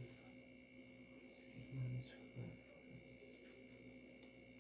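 Faint steady electrical hum of room tone, with a couple of brief soft low sounds about two seconds in.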